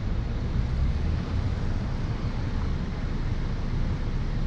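Wind buffeting the microphone at an open car window: a steady low rumble.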